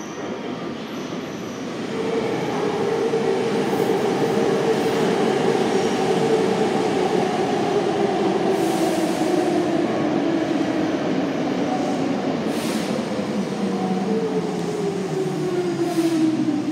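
Hankyu electric train running alongside the platform and slowing, its motor whine falling steadily in pitch over a rumble of wheels on rail.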